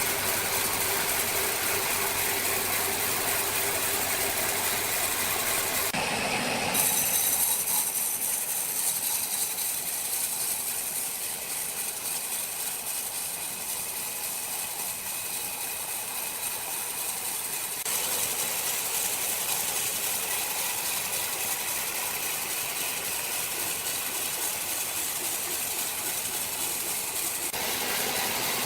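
Power saw running and cutting through jackfruit wood: a continuous, loud mechanical noise with a strong high hiss, changing in tone several times as the cut goes on.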